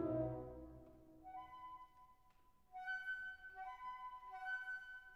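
Background music: a low held chord fades out in the first second, then a light melody of sustained high notes plays.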